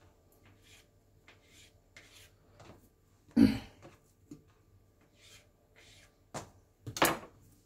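Knife cutting soft risen yeast dough on a countertop: faint scraping and light taps, with two louder thumps, about three and a half seconds in and near the end, as pieces are handled and set down.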